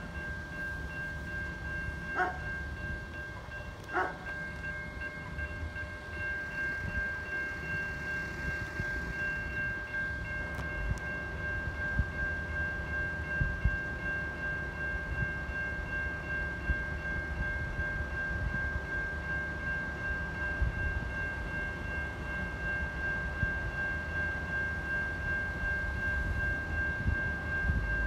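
Level crossing warning bell ringing steadily over a low rumble, while the crossing stays activated with the boom gates down for a run of trams.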